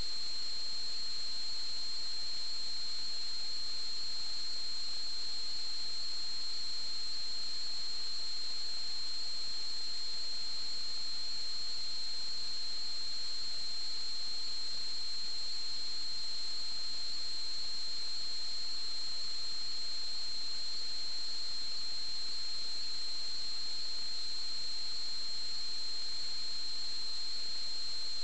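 Steady electronic hiss with a constant high-pitched whine: line noise on the sewer inspection camera recorder's audio channel with no signal coming in.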